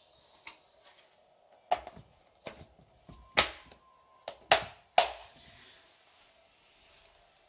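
Plastic lid of a BaroCook flameless cooker pressed down and its locking side clips snapped shut: a run of sharp plastic clicks, the three loudest coming between about three and a half and five seconds in.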